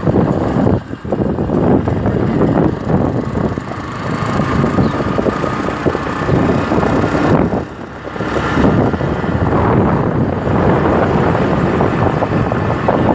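Wind buffeting the microphone of a moving motorcycle, with the motorcycle running underneath. The rush drops briefly about a second in and again about eight seconds in.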